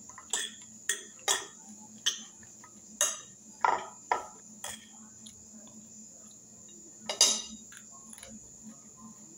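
Metal fork clinking and scraping against a glass bowl. There are a quick run of sharp clinks in the first five seconds and one more, louder clink about seven seconds in.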